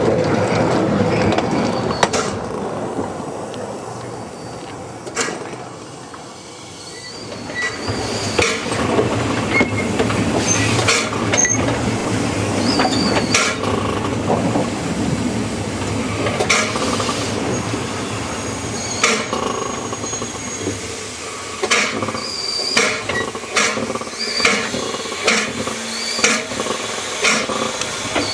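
Narrow-gauge steam train running: a steady rumble and rattle of the running gear, with sharp clicks over the rail and a few brief high wheel squeals. It eases off for a moment about six seconds in, and the clicks come thicker near the end.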